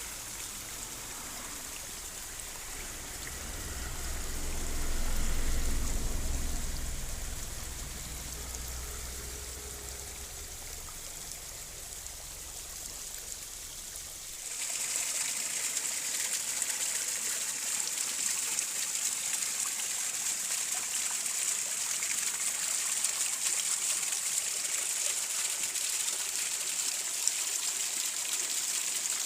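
Running water, a steady stream sound with a low rumble that swells and fades a few seconds in. About halfway it switches abruptly to a brighter, hissier water sound without the rumble.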